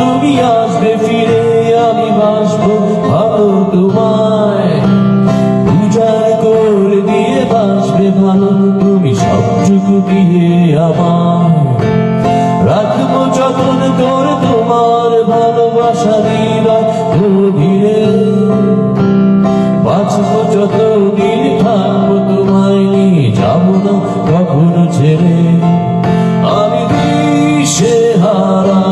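A man singing a Bengali song, accompanying himself on an electronic keyboard playing chords.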